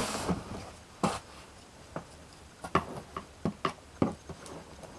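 Packing tape on a cardboard box being cut with scissors while the box is handled: a string of short, irregular clicks and snaps.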